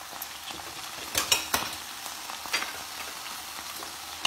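Mahi mahi fillets frying in olive oil in a skillet: steady sizzling with sharp pops of spitting oil, several loud ones a little over a second in and another about two and a half seconds in.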